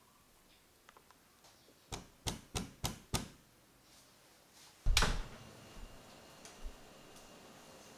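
A metal loaf pan full of cake batter dropped onto a towel-covered counter with a heavy thump just before five seconds in, to settle the batter. Before it come five quick, sharp knocks about two to three seconds in.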